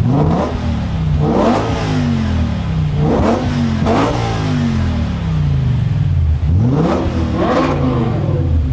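BMW M5 E61 Touring's 5.0-litre V10 through a SuperSprint exhaust, free-revved while standing: about six sharp blips, each rising quickly and falling back slowly toward idle.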